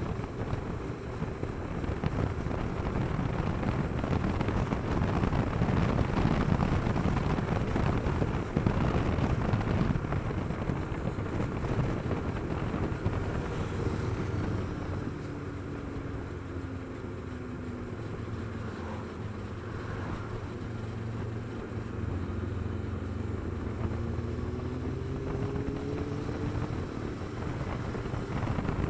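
Kawasaki Versys 650 parallel-twin engine running at road speed under heavy wind rush on the microphone. About halfway through, the engine note falls as the bike slows, then climbs again as it accelerates.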